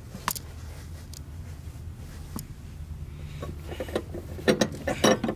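Wrench on a nut of a steel seat-lift bracket: a single metallic click just after the start, then a quick run of clicks and clinks in the last two seconds, over a low steady hum.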